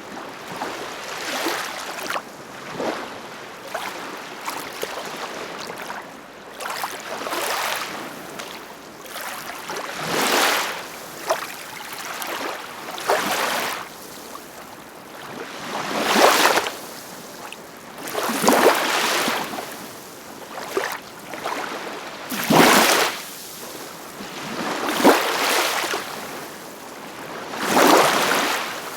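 Ocean waves washing in, with surges of surf hiss swelling and fading every few seconds; the biggest breaks come in the second half.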